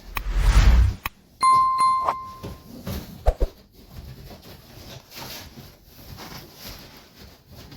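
A low thump, then a piece of metal rings with a clear ding, struck twice about half a second apart before the ring fades.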